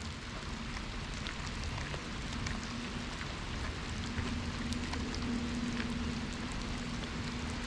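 Heavy rain coming down, an even hiss of falling rain dotted with many small drop ticks. A faint steady low hum runs underneath through the middle.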